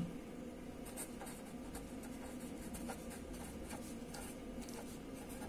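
Pen writing by hand on paper: quiet, irregular scratching strokes of handwriting.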